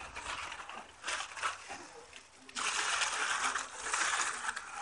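Aluminium foil crinkling and rustling as gloved hands work the foil wrapping around a slab of pork ribs: a few short crackles in the first half, then a longer, louder stretch of crinkling from a little past halfway.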